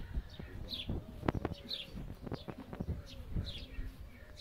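Small birds chirping: short, high, falling notes repeated about once a second. A few sharp knocks sound near the middle.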